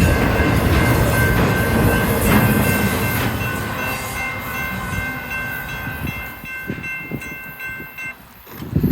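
BNSF intermodal freight train rolling past, its rumble fading steadily as it goes away. A steady high-pitched ringing tone runs alongside and cuts off about eight seconds in.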